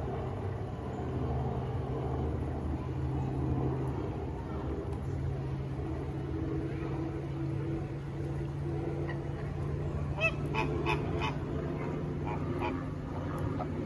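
Flamingos in a flock calling with goose-like honks: a quick run of several honks about ten seconds in and a few scattered ones near the end, over a steady low hum.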